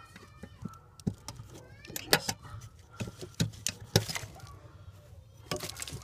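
Scattered sharp clicks and snips, some in quick pairs or threes, from hand work on a car's ECU wiring harness: wire snips cutting the wires and the loose wires and plastic connectors being handled.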